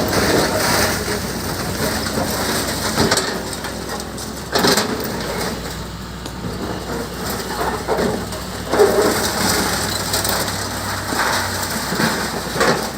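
Backhoe loader working earth: its bucket scraping and crunching through soil and stones over a low engine hum, with a couple of louder knocks.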